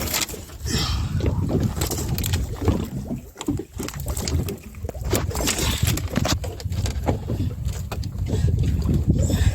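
Small boat rocking at sea, with water splashing against the hull and wind buffeting the microphone, plus scattered knocks and clicks.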